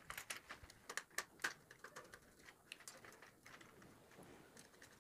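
Faint, scattered small clicks and taps of hands handling a red wire, a small screwdriver and the plastic switch-and-socket fittings, as the phase wire is fitted to the switch terminal. The clicks are most frequent in the first second or so and thin out after.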